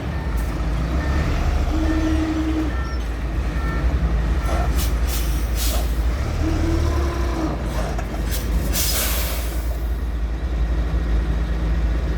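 Diesel engine of a Sany concrete mixer truck running steadily during a brake test. There are a few short beeps in the first few seconds, brief air hisses about five seconds in, and a longer, louder air-brake hiss about nine seconds in.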